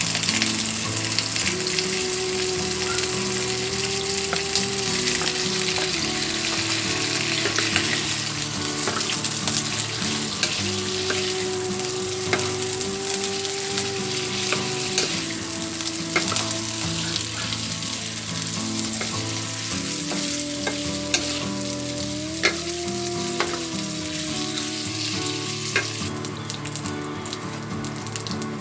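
Food sautéing in hot oil in a pan, a steady sizzle with scattered clicks and scrapes of a spatula stirring against the pan. The sizzle thins out near the end.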